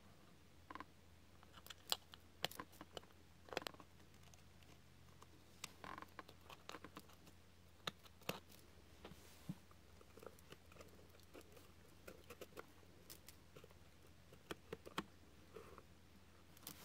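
Scattered light clicks and taps of small handwork: tweezers and fingers handling the card and paper parts of a miniature room, over a low steady hum.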